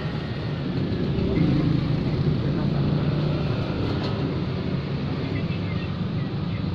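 Steady low rumble of street traffic and running engines, with no sharp knocks or clicks.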